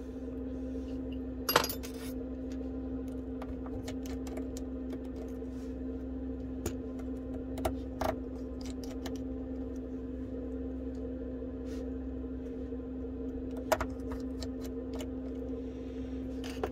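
Precision screwdriver taking tiny screws out of an iPhone 11 earpiece bracket: scattered faint clicks of metal on metal, with a handful of sharper clinks, the loudest about a second and a half in. A steady low hum runs underneath.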